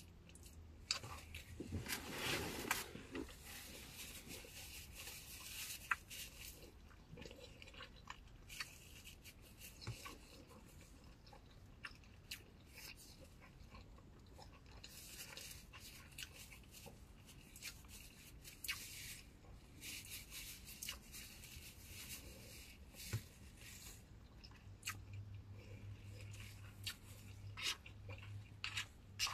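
A person chewing a mouthful of shrimp lo mein and fried rice close to the microphone: soft wet chewing with irregular small mouth clicks and smacks, now and then a sharper click.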